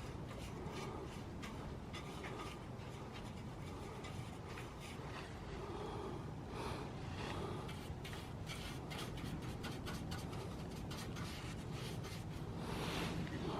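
Brush scrubbing and dabbing rust converter onto the rusty metal of a PC case: a run of light scratchy strokes and small clicks, busiest in the second half.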